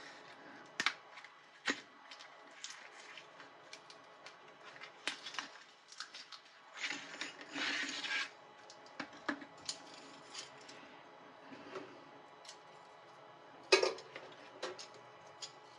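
Handling noises as a new quartz heater rod is slid out of its cardboard box: scattered light clicks and taps, with a rubbing slide about halfway through and a sharper click near the end as the multimeter probes are put to the rod.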